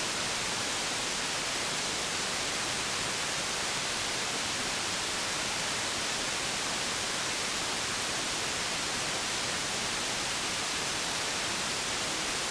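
CB radio receiver putting out a steady hiss of band static, with no station coming through.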